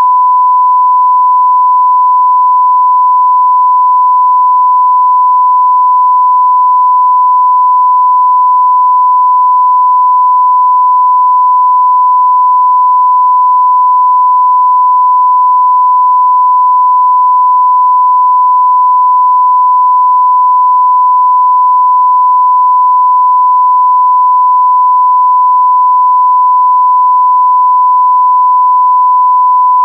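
TV 'no signal' test tone: one loud, unbroken beep held at a single steady pitch, with nothing else beneath it.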